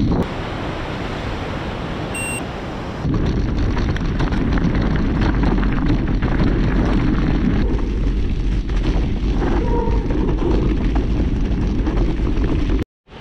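Heavy wind buffeting on the microphone of a camera riding along on a mountain bike, with scattered knocks and rattles. The level jumps up about three seconds in and cuts out for a moment near the end.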